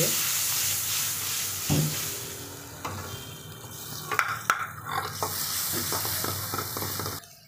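Chopped onions and green chillies sizzling in hot butter in a kadai, loudest in the first couple of seconds, while a metal ladle stirs and scrapes them with a few clinks. The sizzle cuts off abruptly just before the end.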